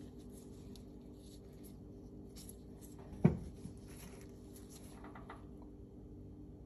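Quiet handling of pistol parts on a cloth-covered table: light rustles of gloved hands, and about three seconds in a single dull knock as the Tanfoglio Stock 2's steel slide is set down, with a smaller tap just after.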